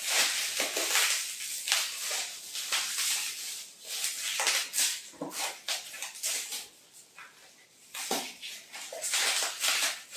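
Plastic wrapping crinkling and rustling as a small cosmetics jar is unwrapped by hand, in irregular bursts with a quieter stretch in the middle.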